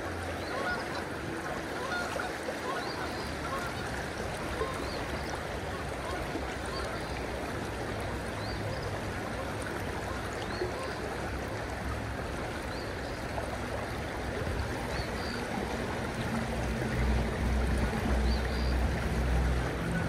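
Creek water rushing steadily over a rippled, fast-flowing stretch, with a low rumble on the microphone building in the last few seconds.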